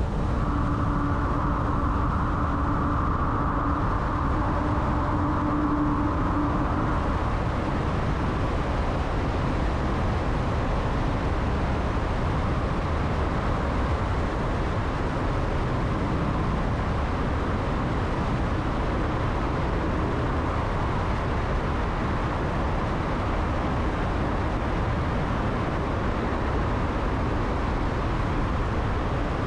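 Steady road noise of a car driving: tyre and running noise, with a steady whine over the first several seconds that then fades.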